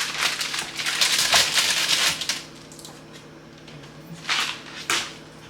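Rustling and clattering of items being handled, dense for about two seconds, then two short knocks near the end.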